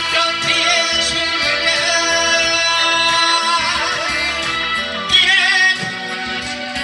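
Korean trot song: a singer holding notes with vibrato over band accompaniment.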